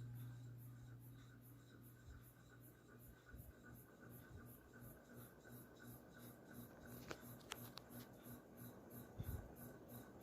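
Ceiling fan running faintly: a low motor hum that weakens over the first few seconds, with a quiet, even pulsing of about three a second and a few light clicks about two-thirds of the way in.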